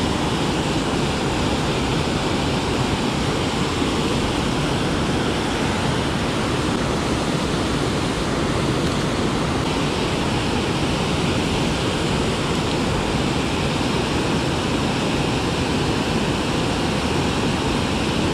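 Water pouring over a river spillway's low dam and rushing through the pool below: a steady, even rush of whitewater.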